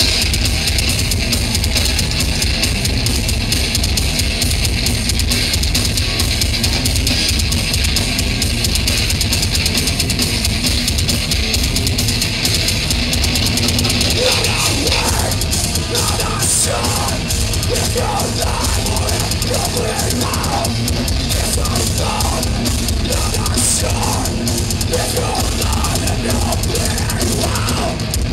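Live rock band playing a loud, heavy song: drum kit and amplified guitars at full volume, dense and steady throughout.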